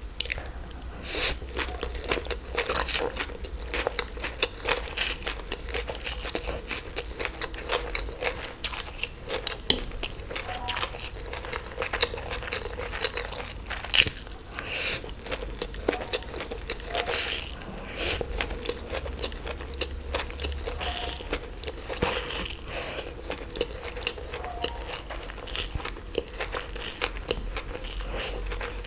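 Close-miked eating: repeated crunchy bites and chewing, many short crisp crunches coming irregularly throughout.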